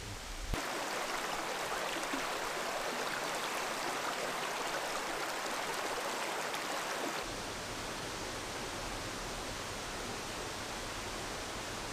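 Shallow stream running over boulders, a steady even rush of water. About seven seconds in it gives way to a slightly quieter, duller steady hiss with some low rumble.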